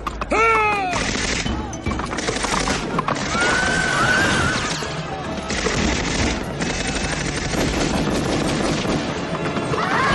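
Action-film soundtrack: rapid bursts of submachine-gun fire over a music score, with a man shouting about half a second in and a woman screaming near the end.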